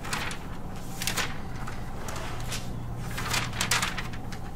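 Sheets of paper being handled and shuffled, rustling in several short bursts over a low steady room hum.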